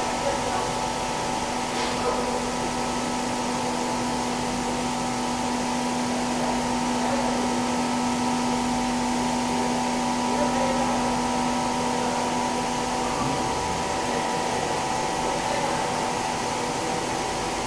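EPS foam block moulding plant machinery running steadily: a continuous whir with several steady humming tones. A low hum drops out about thirteen seconds in.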